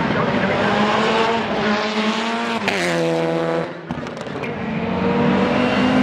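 Rallycross car engine at high revs, its pitch climbing, then dropping sharply about three seconds in before building again.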